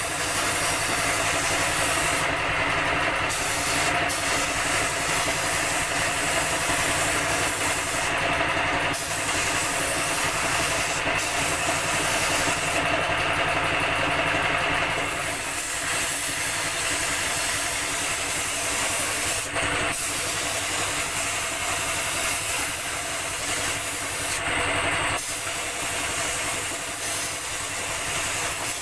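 Compressed-air spray gun hissing as paint is sprayed, the hiss stopping briefly several times as the trigger is let off, over the steady hum of a running air compressor.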